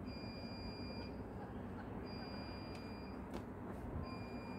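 An electronic beeper sounding three times, each high beep about a second long and two seconds apart, over a steady low rumble of background noise.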